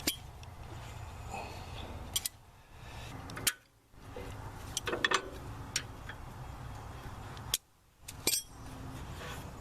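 Scattered sharp metallic clinks and clicks from hand tools and steel tractor parts, as a bolt is worked loose and a part is handled. A steady low hum runs underneath.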